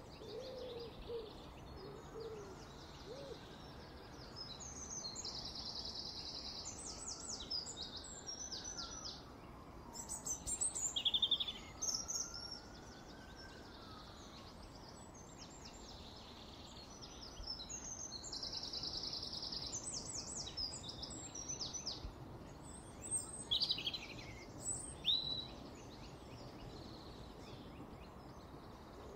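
Small songbirds singing in high twittering phrases and trills, with two longer buzzy notes, over a steady background hum. A pigeon's low cooing trails off in the first few seconds.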